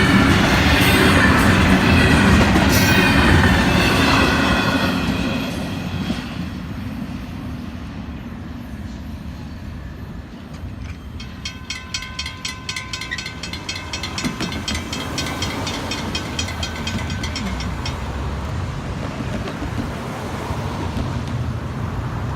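Freight cars of an intermodal train rolling past on the rails, with wheel squeal over the rumble for the first few seconds, then fading to a lower steady rumble as the train moves away. Partway through, a faint rapid ticking with a thin steady tone comes and goes.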